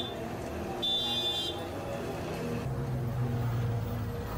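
Police bus engine rumbling as it drives up, getting louder from about three seconds in. A short high-pitched tone sounds about a second in.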